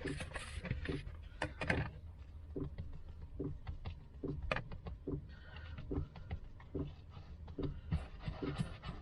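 Hands working and shaping a lump of bread dough: soft, even squishing pushes about twice a second, with a few light clicks in the first two seconds.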